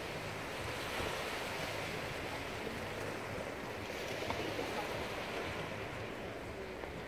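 Steady wash of sea waves, with some wind on the microphone.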